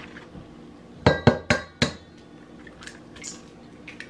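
Eggs knocked against the rim of a stainless steel mixing bowl to crack them: four quick, sharp knocks a little over a second in, then a few fainter clinks.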